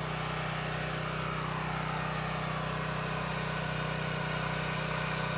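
A steady low mechanical hum at an even level, with a faint tone that slowly falls between about one and three seconds in.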